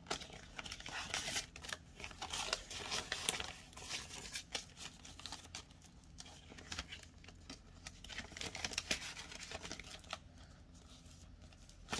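Clear plastic pocket of a cash budget binder crinkling and rustling, with paper banknotes being handled and slid in, in many short irregular scrapes that die down near the end.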